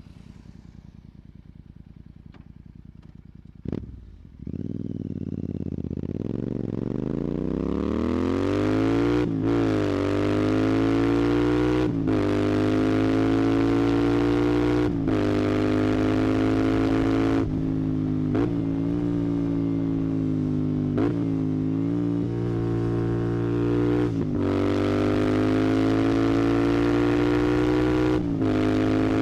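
Royal Enfield Continental GT 650's 648 cc parallel-twin engine through a Red Rooster aftermarket exhaust. After a quiet start and a short knock about four seconds in, the exhaust note rises steadily as the motorcycle pulls away and accelerates. It then holds high, with a brief dip and recovery every few seconds as the throttle is eased and reopened.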